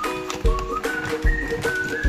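Background music with a steady beat, a thump about every 0.8 s, under a high, whistle-like melody of held notes.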